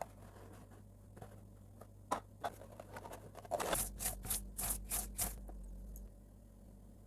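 Hands handling packaging: a few light clicks, then a quick run of short scraping, rustling strokes around the middle.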